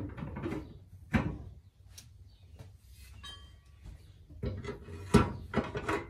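Manual log clamp and stops on the steel bed of a Wood-Mizer LX25 sawmill being worked by hand: scattered metal clanks and knocks, a few about a second apart, then several more near the end, with the loudest about five seconds in.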